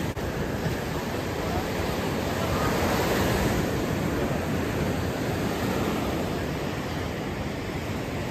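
Surf washing onto a sandy beach: a steady rush of noise that swells a little midway.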